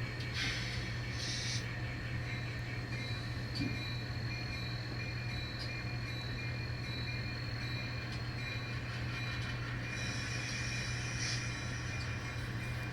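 N scale model train running on the layout: a steady low hum with faint rail noise.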